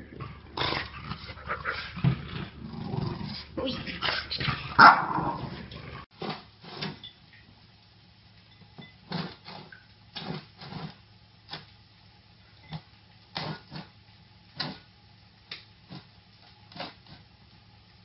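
A dog growling and barking for about six seconds, loudest near five seconds in. After a sudden cut, a string of short sharp sounds follows, spaced roughly a second apart.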